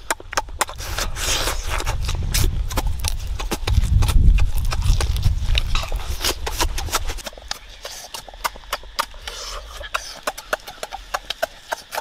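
Close-miked chewing and lip-smacking of a person eating grilled sausage: a dense run of wet mouth clicks and smacks, with a low rumble under the first seven seconds, strongest about four seconds in.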